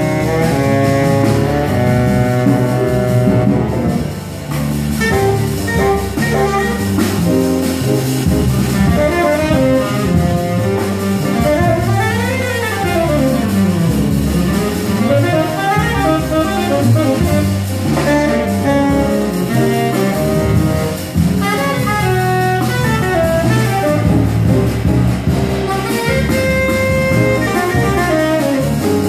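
Live jazz: a tenor saxophone solo in quick runs that climb and fall, with a double bass and drum kit accompanying.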